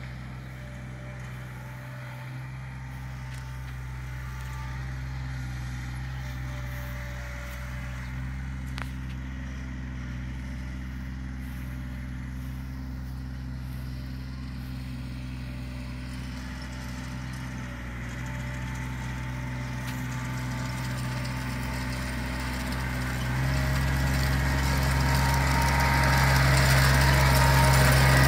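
John Deere 2320 compact tractor's three-cylinder diesel engine running steadily as the tractor drives across a lawn, growing louder as it comes close near the end.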